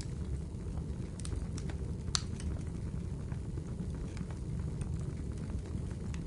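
Crackling fire ambience: a steady low rumble with irregular sharp pops and crackles, one louder crack about two seconds in.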